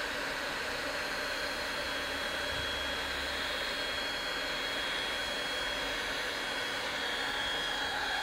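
Milwaukee heat gun blowing steadily with a thin high whine over its airflow, heating heat-shrink sleeving onto cable ends.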